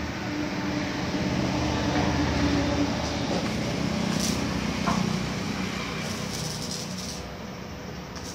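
An engine rumble with a low hum that grows louder a couple of seconds in and fades toward the end.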